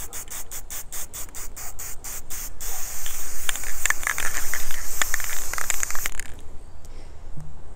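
Aerosol can of ColorPlace black spray paint: the mixing ball rattles at about five clicks a second as the can is shaken, then the can sprays in a steady hiss for about three and a half seconds and stops.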